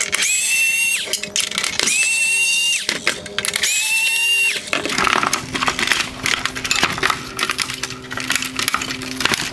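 Small electric screwdriver whining in three separate runs of about a second each, backing out the three T20 Torx screws that hold a headlight's front bezel. From about halfway through comes a stretch of plastic clicking and rattling as the bezel and headlight housing are handled.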